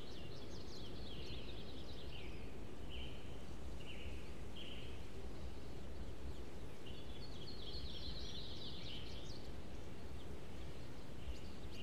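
Birds chirping over a steady low background noise: a few spaced short calls, then a busier run of chirps about two-thirds of the way in.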